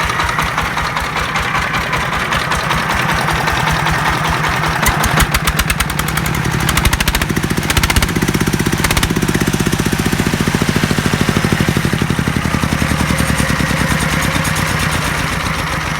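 Jiangfa D30 diesel engine running after a rebuild, with a steady rhythmic firing beat that quickens slightly about five seconds in. It is running normally after the repair.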